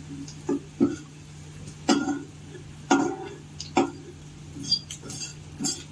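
A spatula knocking and scraping against a metal frying pan as paneer cubes are stirred and turned in oil, in sharp clicks about once a second that come more thickly near the end, over a steady low hum.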